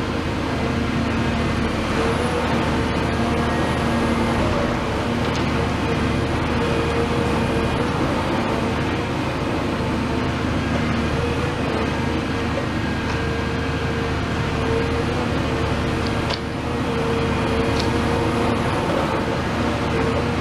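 Cat 336F demolition excavator's Cat C9.3 diesel engine running steadily close by, with a steady humming tone over the engine's rumble.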